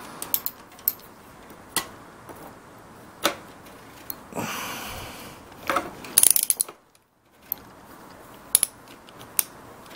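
Ratchet wrench and socket clicking in short, scattered runs as a motorcycle front-fork cap is screwed down and tightened. There is a brief rasping scrape about four and a half seconds in, and a quick burst of clicks a little after six seconds.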